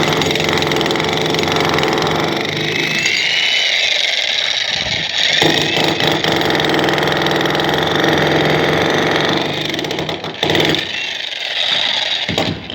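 A heavy-duty concrete breaker machine running loudly, starting abruptly, with brief dips about five and ten and a half seconds in.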